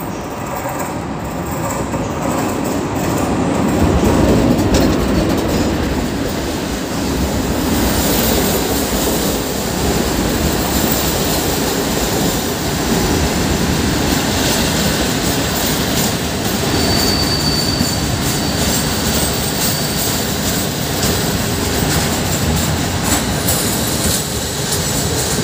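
Electric locomotive and a long rake of passenger coaches pulling in along the platform, steel wheels rumbling and clicking over the rail joints, loudest as the locomotive passes early on. Past the middle a thin high wheel or brake squeal rings for a few seconds as the train slows.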